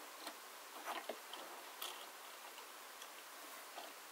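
A few faint, irregular clicks and taps over a steady hiss: a die-cast toy car being handled and rolled along a model track.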